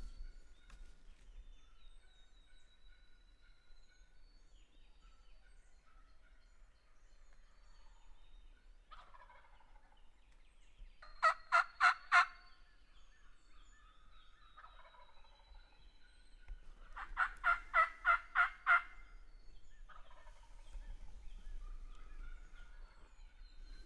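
Turkey calls in two runs of loud, evenly spaced notes, about four and then about eight. Faint songbird calls carry on in the background.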